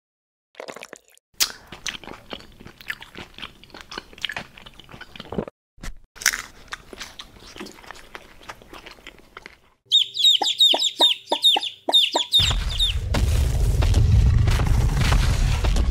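Crisp crunching and clicking ASMR foley, quiet and scattered, for about ten seconds. Then comes a quick run of bird-like chirps, about four a second, lasting two seconds. A loud low rumble starts after that and holds to the end.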